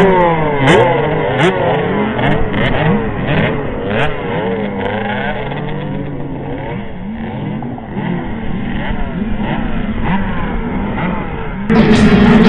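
Motocross bike engines revving up and down over and over, the pitch rising and falling with each throttle opening and gear change, at times more than one engine at once. Near the end the engines cut off abruptly and loud music begins.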